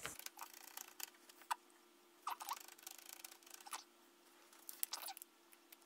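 A felting needle in a wooden pen holder stabbing into wool by hand, heard as a few faint, irregular ticks over a faint steady hum.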